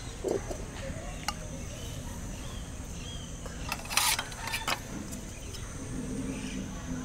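Outdoor ambience with a steady high-pitched insect drone. A few light clicks, and a brief rustle and knock about four seconds in as an earthenware bowl of raw chicken is set down on a banana leaf.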